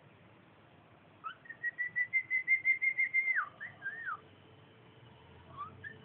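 Cockatiel whistling a short phrase: a quick rising note, then a fast string of pulses on one pitch, then a drop in pitch and a short rising-and-falling note, with a faint chirp near the end.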